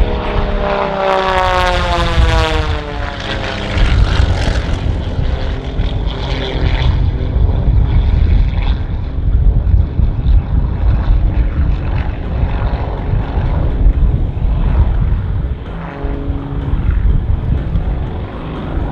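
Aerobatic biplane's piston engine and propeller making a fast low pass, the engine note dropping in pitch as it goes by. Then a heavy drone that swells and fades as the plane climbs and tumbles through its manoeuvres.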